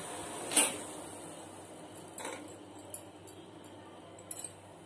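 A metal slotted spoon clinking against an aluminium pot of sugar syrup: about four sharp clinks, the loudest about half a second in. A steady low hiss underneath slowly fades.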